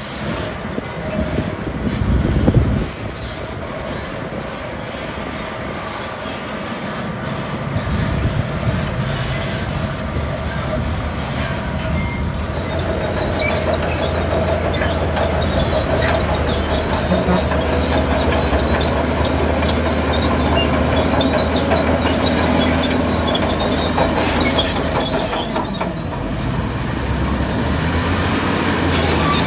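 Zoomlion bulldozer working: its diesel engine runs steadily under load while its steel tracks squeal and clank. A louder noisy stretch in the first few seconds stops abruptly, and the machine grows louder from about eight seconds in.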